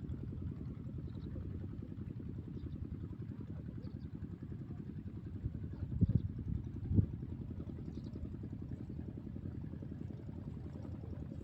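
An engine idling steadily, with a fast even pulse, and a couple of louder knocks about six and seven seconds in.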